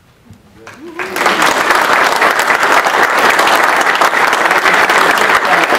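Audience applauding, breaking out about a second in as a dense, steady clapping.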